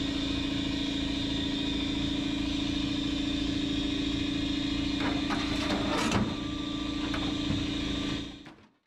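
Pneumatic air hammer fitted with a slotted panel cutter, buzzing steadily as it cuts the trunk floor sheet metal, here two layers of metal plus fiberglass that make it struggle. A few metal clanks come about five to six seconds in, and the buzz fades out near the end.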